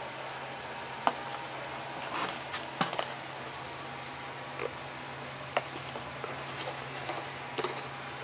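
Handling noise from a foam-board model plane being turned over and set down: soft rustles and three sharp clicks, about one, three and five and a half seconds in, over a steady low hum.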